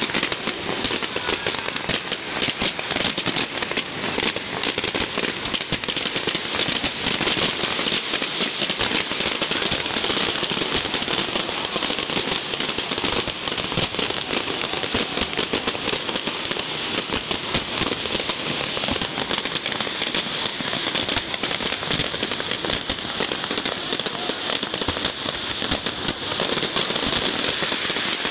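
Aerial fireworks going off close by in a dense, unbroken crackle, many small bursts overlapping with no pause.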